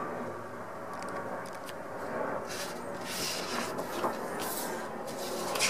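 Large paper posters rustling and sliding on a table as they are handled, in several short bursts in the second half, over a faint steady background.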